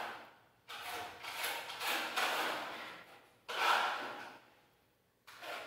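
A trowel scraping across a wall as burnt-cement effect coating is spread and smoothed: a series of hissing strokes, each starting sharply and fading, with short pauses between them.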